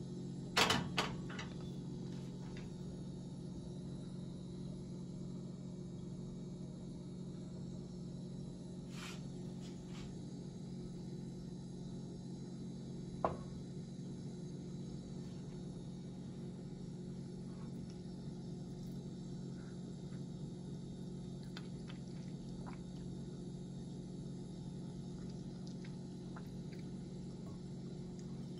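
A saucepan set down on a gas stove's metal grate, giving a quick cluster of clinks about a second in, over a steady low hum. A few single light knocks follow later.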